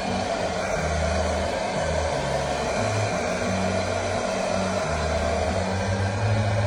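Handheld hair dryer blowing steadily as it is worked over a boy's short, damp hair.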